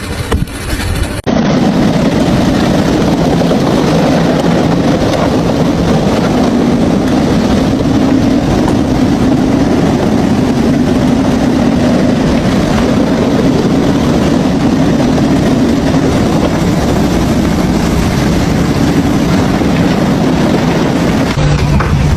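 A machine's engine running loud and steady with a low hum, cutting in abruptly about a second in; its hum drops lower near the end.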